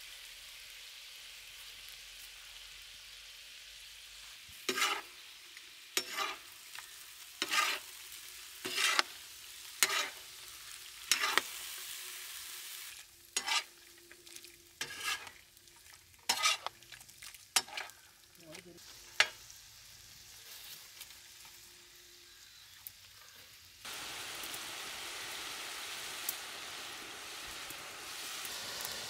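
Chicken frying on a tawa with a steady sizzle while a utensil scrapes and knocks against the pan in repeated stirring strokes, roughly one a second, stirring the ground masala through. The sizzle grows louder near the end.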